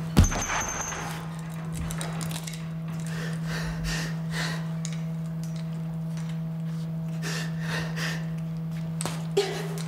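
Boxing-glove punches landing on a heavy punching bag: one hard hit just after the start and another near the end, with breathing between them over a steady low hum.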